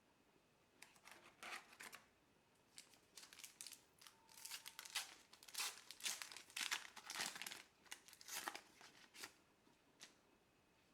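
Plastic wrapper of a trading card pack being torn open and crinkled by hand, in irregular crackling bursts that are thickest in the middle, then a single tap near the end.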